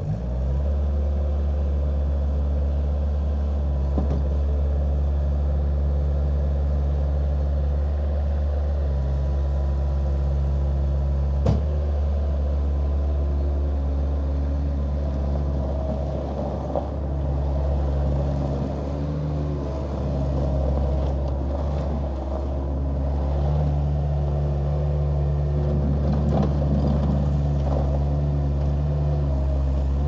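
Bobcat 753 skid steer's diesel engine running steadily at raised throttle while the machine drives and turns, its loudness stepping up just as it begins. There is one sharp clank about a third of the way through.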